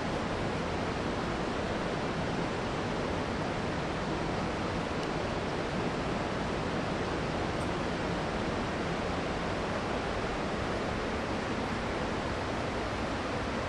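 Steady rushing of a mountain river, an even wash of water noise that does not change.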